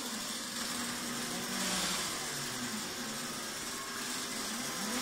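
Homebuilt CNC quilting machine running a pattern. The X and Y stepper motors whine, gliding up and down in pitch as the carriage changes speed, over a steady mechanical hum.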